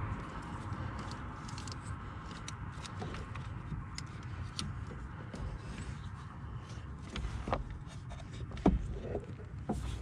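Scattered light clicks and knocks of small parts being handled, the loudest about three-quarters of the way through, over a steady low rumble.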